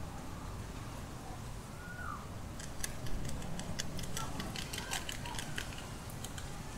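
Guinea pigs chewing an avocado tree leaf: a quick run of crisp little crunching clicks through the middle of the stretch, with a brief faint high squeak about two seconds in.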